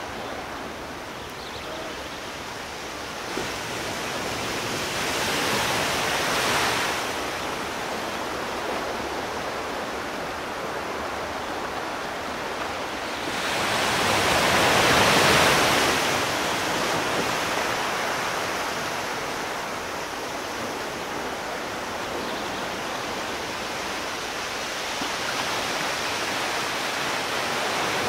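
Sea surf: waves breaking and washing on the shore in a continuous rush. It swells twice, once about a fifth of the way in and more strongly around halfway.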